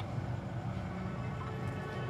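Toyota Corolla GLI's petrol engine running steadily at idle, with a low, even hum.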